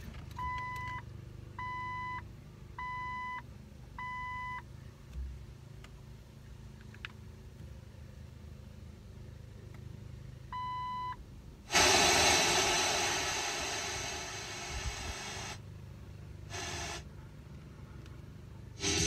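Electronic beeps, five short ones of the same pitch a little over a second apart, then one more later on. About twelve seconds in, the car's speakers suddenly give a loud hiss as the newly installed stereo is tested; it is turned down over a few seconds and cuts out twice, and music starts at the very end.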